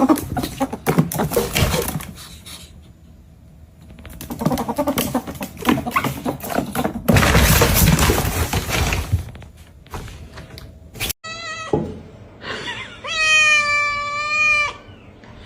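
A cat meowing: a short meow, then a long, drawn-out, wavering meow near the end. Before that, a stretch of clattering and a loud burst of noise.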